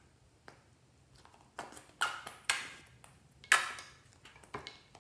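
Small plastic squeeze bottle of purple paint being squeezed onto slime, giving several short squirts, the loudest about two and three and a half seconds in.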